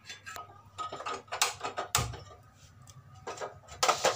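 Clatter and sharp clicks of a metal karahi being settled on a steel gas stove and the burner knob being turned, with one heavier knock about halfway through.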